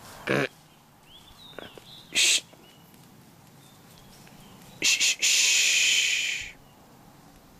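A white-tailed deer blowing: short, sharp snorts of air, then one long hiss lasting over a second, the alarm blow of a deer that senses danger. Faint bird chirps sound in between.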